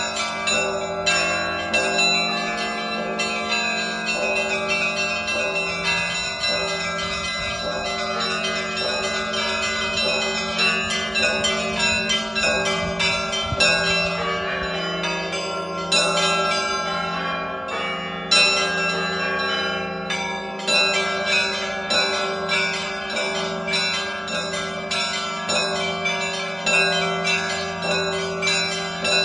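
Russian Orthodox church bells rung by a bell-ringer in a continuous peal. Rapid, dense strokes on the smaller, higher bells sound over the steady hum of a deep bell.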